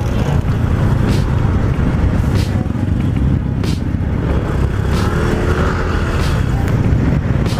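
Wind rumbling loudly over an action camera's microphone on a moving motorcycle, with the motorcycle's engine and road noise running underneath.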